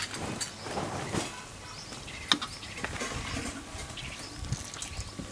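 Bajjis deep-frying in hot oil in an iron kadai, the oil sizzling steadily, with a few sharp clicks of the metal slotted spoon knocking against the pan as they are turned.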